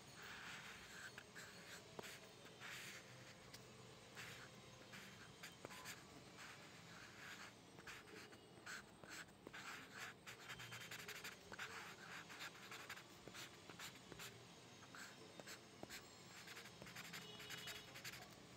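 Faint scratching of a graphite pencil on textured drawing paper, in many short, irregular strokes.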